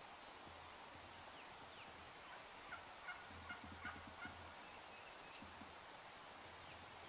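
Wild turkey tom gobbling once, faint: a quick rattling run of notes about three seconds in, lasting about a second and a half.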